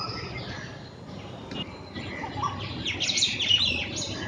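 Pair of black drongos calling, with scattered notes and a quick run of high, sharp notes about three seconds in, the loudest part.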